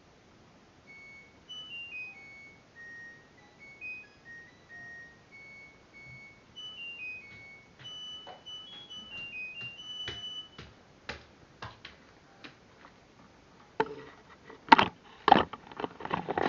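LG F1089ND washing machine playing its electronic end-of-cycle tune, a short melody of single beeping notes stepping up and down, signalling that the programme is finished. Sharp clicks and knocks follow, loudest and densest near the end.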